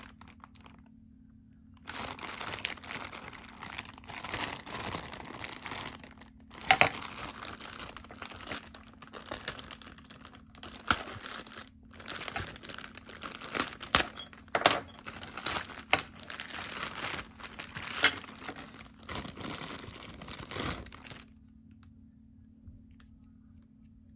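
Figure packaging being handled and opened, crinkling and rustling with repeated sharp crackles. It starts about two seconds in and stops a few seconds before the end.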